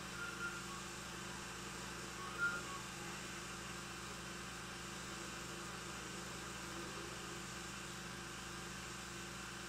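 Steady low mains-type hum and hiss of an old film soundtrack, with a faint short sound about two and a half seconds in.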